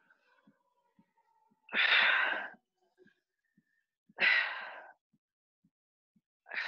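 A person breathing out hard in time with dumbbell reps: three forceful exhalations about two and a half seconds apart.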